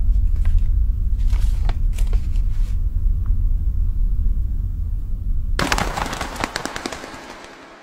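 A low drone with scattered crackles. About five and a half seconds in comes a sudden loud burst of sparks and flame, hissing and crackling, which then fades away.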